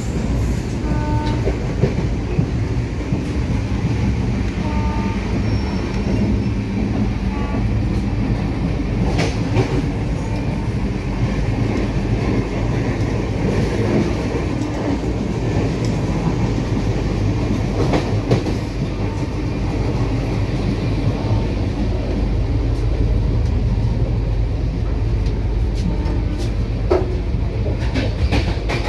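Running noise inside a moving LHB passenger coach: a steady low rumble from the train under way, with occasional short clicks and knocks.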